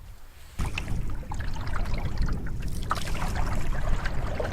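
Water lapping and splashing against a canoe hull, over a low wind rumble on the microphone. It starts suddenly about half a second in.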